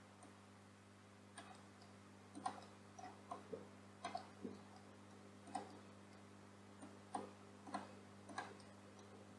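Faint computer mouse button clicks, about fifteen at irregular intervals of roughly half a second to a second, over a low steady electrical hum.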